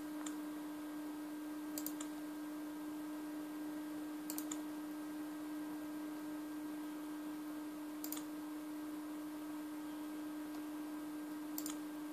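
Pointer-button clicks as pages are selected on the netbook, each a quick press-and-release pair, coming every few seconds, about four or five in all. A steady low hum runs underneath.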